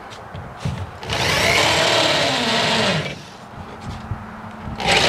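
Power drill running a bit through a bolt hole in a painted steel truck frame, cleaning paint out of the hole. It runs for about two seconds, winding down in pitch as it stops, then starts up again near the end.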